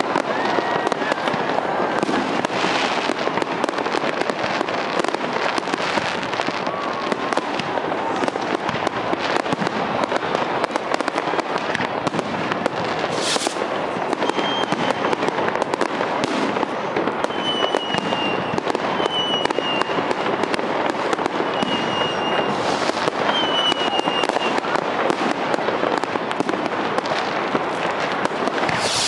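Fireworks display in full swing: aerial shells bursting in a dense, continuous run of overlapping bangs and crackle. A few short high whistles cut through in the second half.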